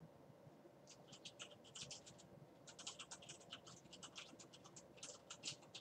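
Faint, irregular scratchy clicks, several a second in uneven clusters, over a quiet background.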